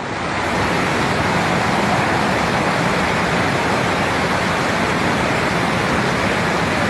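Steady rush of running water, an even hiss that fades in over the first half second and then holds level.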